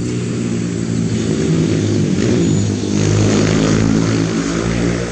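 Two-wheel hand tractor's single-cylinder Kubota diesel engine running hard under load, its pitch shifting and growing louder about two to four seconds in.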